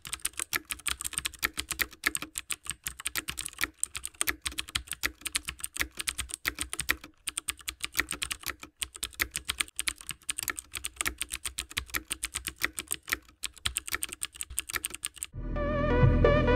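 Fast keyboard typing, a steady stream of key clicks with a few short breaks. Near the end the typing stops and music comes in.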